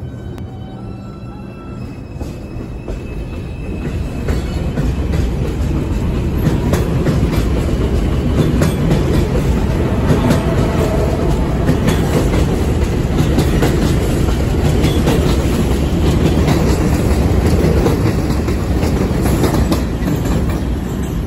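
R142 subway train pulling out and gathering speed, starting with a faint electric motor whine. From about four seconds in the cars rumble loudly past, with repeated clicks of the wheels over the rail joints.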